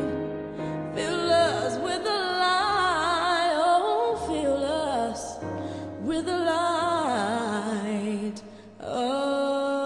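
Music: a woman sings slow, wordless gospel runs with vibrato over held low chords, with a short drop-off about 8.5 seconds in.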